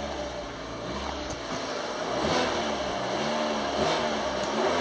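Fiat 500C's small four-cylinder engine being revved in park, heard from inside the cabin: the engine note rises and falls in several short blips from about two seconds in.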